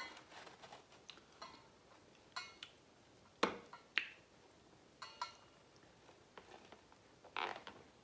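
Faint eating sounds: a metal fork clicking and scraping against seafood-boil food in a paper-lined tray, with wet chewing and mouth noises. Two sharp clicks about halfway through are the loudest, and there is a short cluster of sounds near the end.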